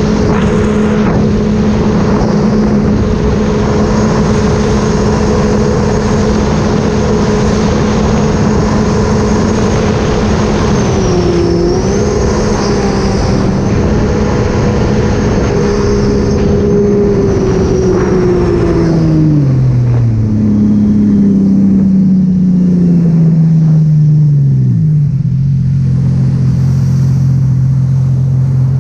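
Engine of a 2018 Sea-Doo RXP-X 300 jet ski, a supercharged three-cylinder Rotax, running at a steady cruise over rushing water. About two-thirds of the way in, its note falls in pitch, and near the end it steps down again and settles lower.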